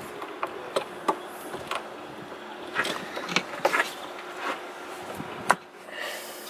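Irregular clicks and knocks of engine-bay parts and rubber hoses being handled by gloved hands under a car's bonnet, with one sharper knock about five and a half seconds in.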